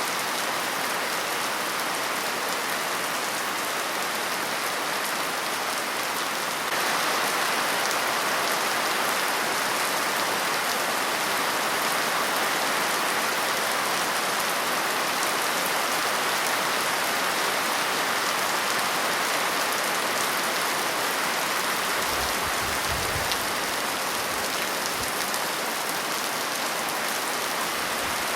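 Rain falling in a steady, even hiss. It steps up slightly in loudness about seven seconds in, and a few brief low rumbles come near the end.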